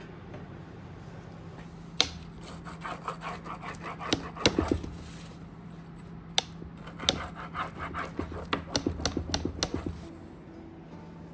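Irregular clicks, taps and light knocks of small objects being handled, some in quick runs, over a steady low hum.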